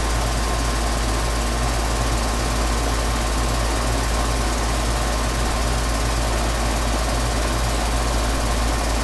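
Gibson central air conditioner's outdoor condensing unit running with a steady low hum while R22 refrigerant is charged into it as vapour.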